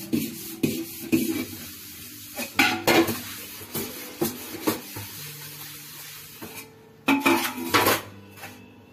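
Stainless steel plates and bowls clinking and clattering against each other and the counter as they are washed by hand, with a run of louder knocks about two and a half seconds in and another near the end.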